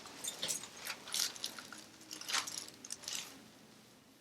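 Light rustling and shuffling of a person shifting position on a padded treatment table, as a few soft scrapes about a second apart that die away near the end.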